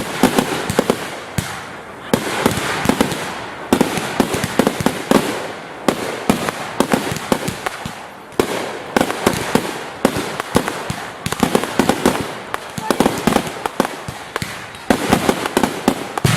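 Fireworks finale barrage: rapid, overlapping loud bangs from many shells at once, coming in waves every second or two, with continuous crackling in between.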